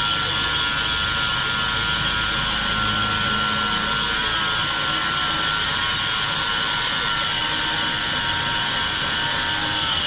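Large vertical band saw running and ripping lengthwise through a log: a loud, steady machine noise with several high-pitched tones over a hiss.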